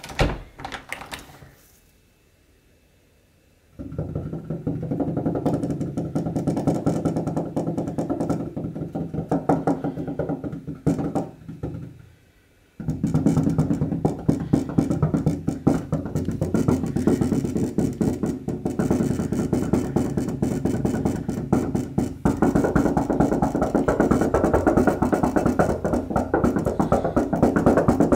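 Background music with a steady electronic beat, coming in about four seconds in, dropping out briefly near the middle and then resuming. A short clatter sounds right at the start.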